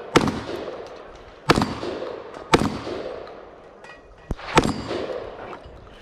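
Beretta 1301 Tactical semi-automatic 12-gauge shotgun firing four shots, spaced about one to two seconds apart, each followed by a short echo.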